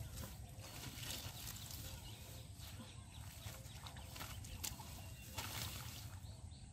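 Hands pulling water hyacinth and weeds out of shallow muddy water, making faint rustling and squelching. Faint short calls repeat in the background.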